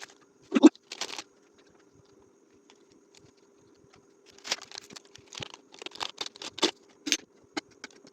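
Instant noodles being mixed with their seasoning by hand: a knock and a rustle early, then a run of short crinkling, scraping sounds from about halfway, over a faint steady hum.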